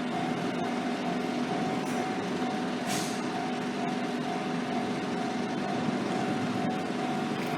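A vehicle running steadily with a constant hum, and a short hiss about three seconds in.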